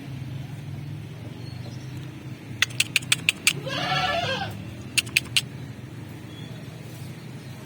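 A goat bleats once, about four seconds in. A quick run of sharp clicks comes just before the bleat and three more just after it, over a steady low hum.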